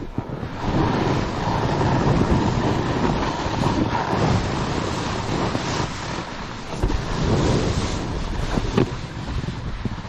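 Wind rushing over a helmet-mounted microphone while snowboarding downhill, mixed with the board's edge scraping and hissing through the snow; the rush swells and eases as the rider turns, with a few short sharp scrapes.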